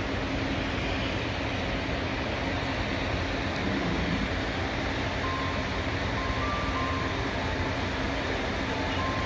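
Steady running rumble of a safari park vehicle heard from inside its cabin, with a low hum over it.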